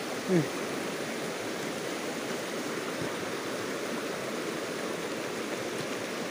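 Shallow river rushing over rocks in small rapids, a steady whitewater noise. About half a second in, a brief louder sound falls in pitch.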